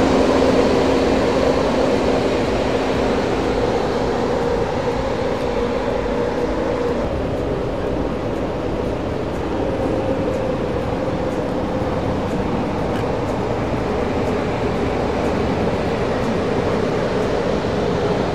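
A steady machine hum with two even tones over a rushing noise, like a fan or compressor running.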